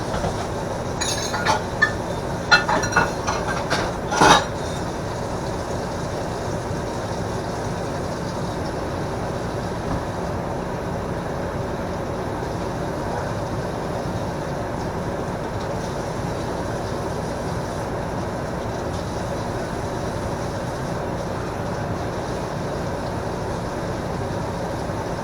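Microwave oven running with a steady hum. Dishes clink against each other several times in the first four seconds or so.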